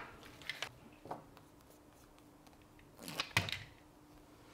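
Faint rustling and light ticks of paper and self-adhesive transparent sticker sheets being handled on a rubber work mat, with a louder brief crinkling rustle about three seconds in as the cut-out sticker logo is worked between the fingers.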